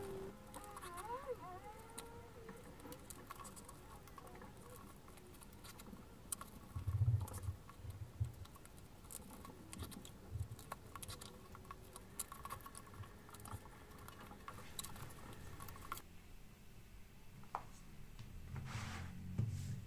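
Hand-stitching leather: thread drawn through the stitching holes and needles handled, a faint scratchy rustle with small clicks and a few soft thumps of hands on the leather.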